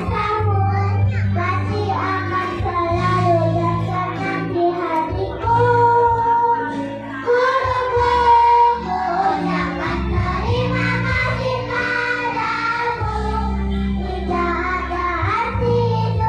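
Young children singing together as a choir over a backing track.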